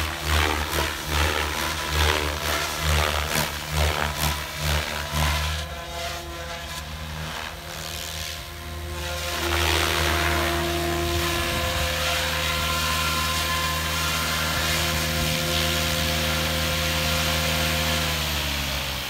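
SAB Goblin 570 Sports electric RC helicopter, its rotor blades and electric motor running. For the first few seconds the sound pulses as it flies close by, then it settles into a steady hum while it hovers and lands. Near the end the pitch falls as the rotor winds down.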